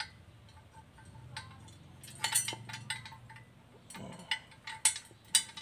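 Steel locking pin and its small chain on a double-locking jack stand clinking and jingling as the pin is handled and slid into the stand's column to lock it. Several sharp metallic clinks, clustered about two seconds in and again near the end.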